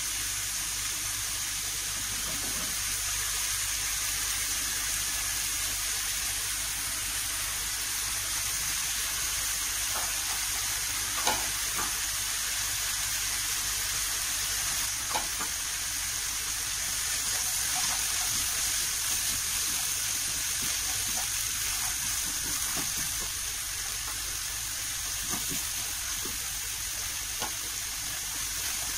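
Chicken, shrimp, sausage and carrot pieces sizzling in hot oil in a wok as they are stir-fried with a plastic spatula: a steady hiss, with a few light knocks of the spatula against the pan.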